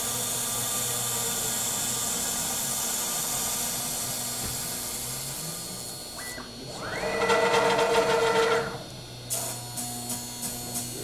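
A homemade CNC router cutting pink foam board: the spindle runs with a steady high hiss. About six seconds in it drops away and the stepper motors give a rising pitched whine that holds for about two seconds as the spindle head moves to a new spot, then the hiss returns with faint regular ticking.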